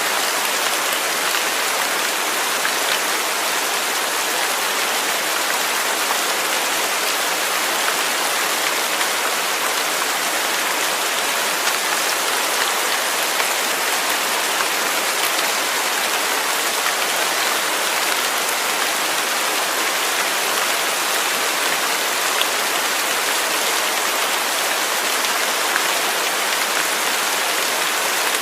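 Steady rain falling, a dense even hiss with scattered individual drop ticks and no thunder.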